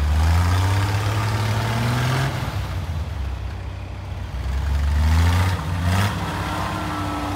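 Off-road Jeep's engine revving hard twice, each rev rising in pitch for a second or two, as the Jeep works to push through deep snow.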